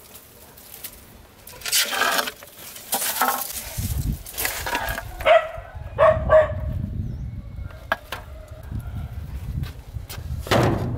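Leafy plants rustling as they are pushed aside and brushed past, and a dog barking about three times near the middle.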